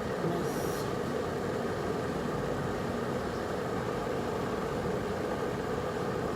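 Cosori electric kettle heating water toward the boil: a steady hiss and rumble from the water.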